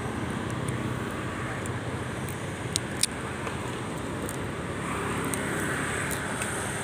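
Steady background noise of distant road traffic, swelling a little about five seconds in, with two sharp clicks close together near the middle.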